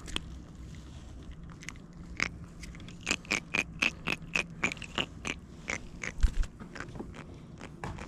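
Irregular sharp clicks and scrapes from a small grunt being unhooked by hand, a few each second, with one dull thump about six seconds in.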